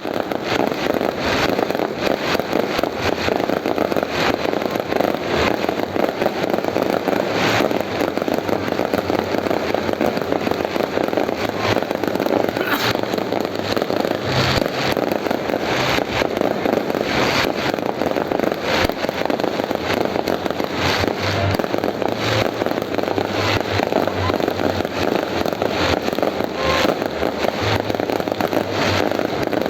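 Fireworks display: sharp bangs of bursting shells at irregular intervals, over a steady dense noise.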